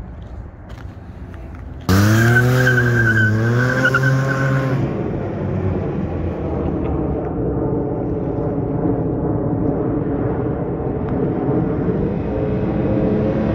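Can-Am Ryker 900's three-cylinder engine through a Silber Tuneable quiet exhaust: about two seconds in it starts suddenly and loud, revving up and down, then runs steadily and grows louder as the trike approaches near the end.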